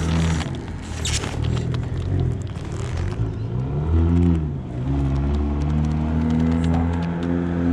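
A motor vehicle engine running. Its pitch rises and falls once about four seconds in, then holds steady. Knocks and scrapes come in the first couple of seconds.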